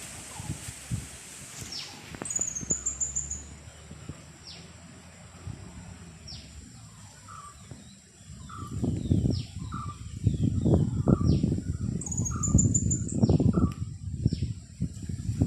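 Wind gusting over the microphone, breaking into loud low rumbling buffeting about halfway through. Small birds chirp throughout in short falling notes, with a high trill twice.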